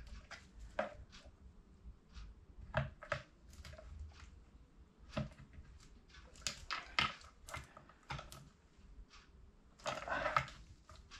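Plastic trim tool scraping and clicking against the softened plastic edging and glass of a car's rear-view mirror as the mirror glass is prised out, in short, irregular ticks and scrapes that come thickest about halfway through.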